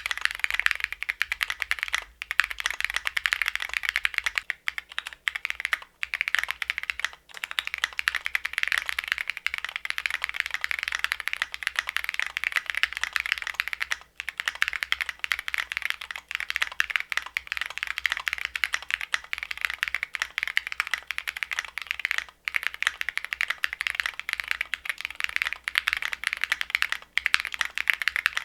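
Continuous fast typing on a custom mechanical keyboard with lubed Cherry MX Hyperglide Black linear switches, a gasket-mounted polycarbonate plate and tall SA-profile keycaps, giving a dense run of key clacks with a few short pauses.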